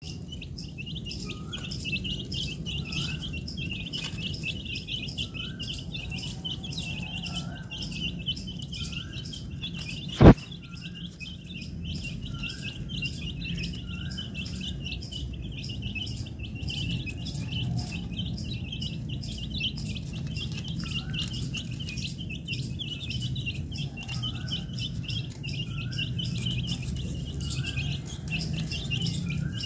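A flock of young chicks chirping constantly, dozens of short high peeps overlapping, with a few lower rising peeps every second or so. One sharp, loud knock about ten seconds in.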